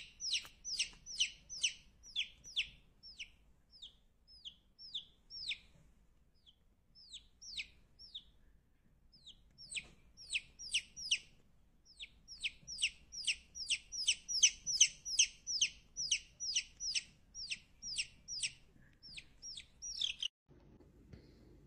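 Domestic chick peeping over and over, each peep sliding down in pitch, about three a second. The peeps thin out for a few seconds midway, then come thick again and stop shortly before the end.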